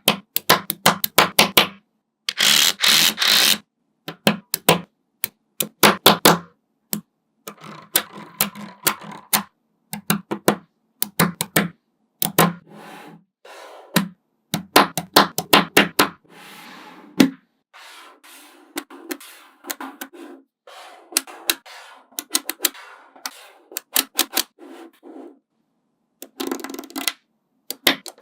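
Small magnetic balls clicking as they snap together and are pressed into place, in quick runs of sharp clicks with short pauses between. About two seconds in there is a denser clatter lasting about a second and a half.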